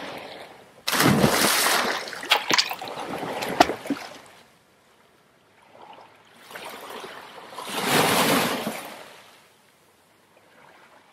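Water sound effects for an animated logo: a sudden splash about a second in, with splattering and dripping that die away, then a rushing swell of water that builds and fades out near the end.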